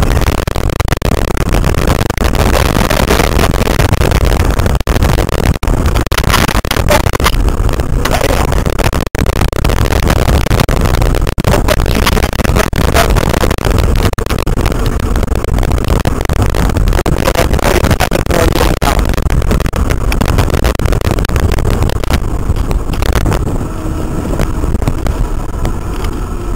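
Heavy wind rush and rumble on the microphone of a fast-moving e-bike. Near the end the rush eases a little and a faint steady whine comes through.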